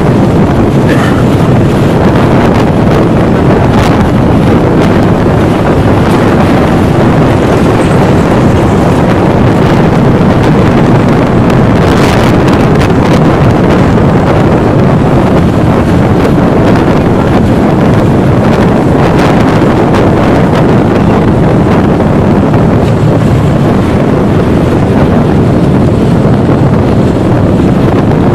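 Steady, loud rumbling noise inside a car's cabin as it creeps through traffic: engine and road noise, with a wind-like rush on the microphone.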